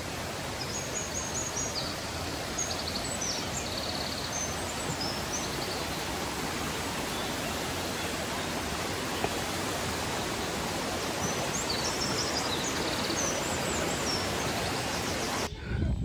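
Steady rush of a rocky mountain stream, with short runs of high bird chirps over it in the first few seconds and again later; the water sound cuts off just before the end.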